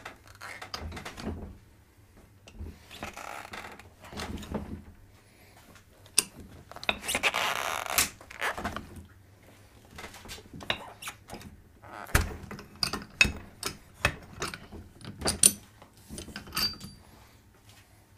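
Lever-type bead breaker of a Pittsburgh Automotive mini tire changer being worked around a lawn-tractor tire to break the bead off the rim: irregular creaking and scraping strokes, then a run of sharp metal knocks and clicks in the second half.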